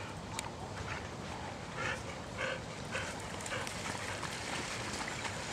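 A dog barking, a quick run of four or five short barks about two seconds in, over steady outdoor background noise.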